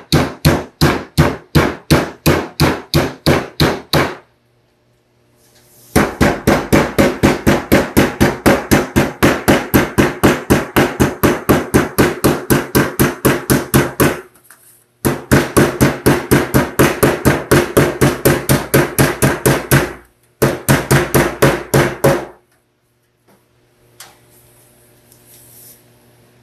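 Claw hammer striking the edge of a sheet of metal on a wooden table: rapid, even blows, about five a second, in several runs with short pauses, stopping a few seconds before the end.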